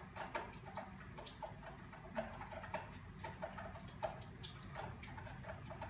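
Crochet hook and yarn being worked in single crochet: soft, irregular clicking and rustling, a few clicks a second, over a faint steady hum.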